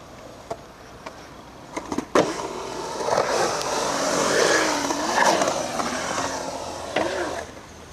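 Skateboard rolling through a concrete bowl: the wheel roll swells from about two seconds in, its pitch rising and falling as the rider carves, and fades near the end. A few sharp clacks of the board, the loudest about two seconds in.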